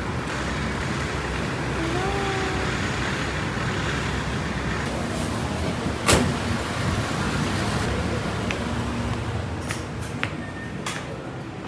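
Steady road traffic noise, with one sharp knock about six seconds in.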